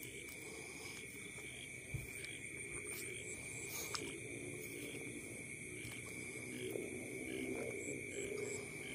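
Night chorus of crickets or similar insects: a steady, high trill with a fast, evenly pulsing chirping above it.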